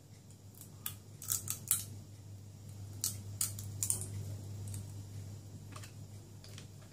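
Crisp crunches of a person biting and chewing something dry and brittle, in quick clusters about a second in and again around three to four seconds, with a few fainter ones later, over a steady low hum.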